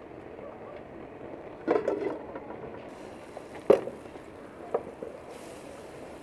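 A few sharp knocks and clinks of cookware being handled, a small cluster early and the loudest single knock about midway, over a steady background hiss.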